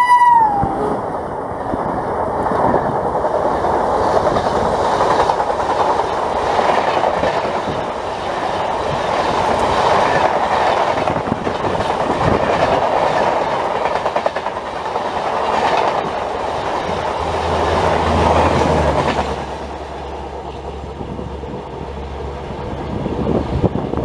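A passenger train hauled by a WAP7 electric locomotive passing at speed: the tail of its horn falls away in the first second, then a loud rush of wheel and coach noise with a rapid clatter of clicks runs for about twenty seconds before dropping off sharply.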